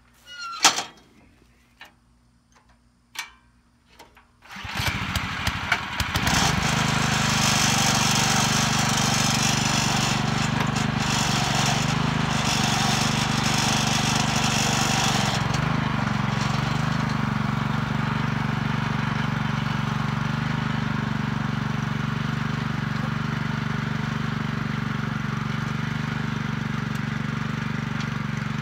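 Small gas engine of an Earthquake garden cultivator being pull-started: a few sharp recoil-cord pulls, then it catches about four and a half seconds in, revs up and runs steadily.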